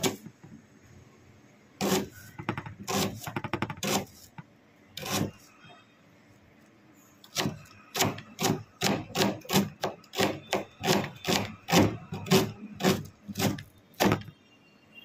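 Kitchen knife chopping an onion on a plastic cutting board: a few separate chops, a quiet spell of a second or two, then a steady run of chops at about two or three a second from about halfway in.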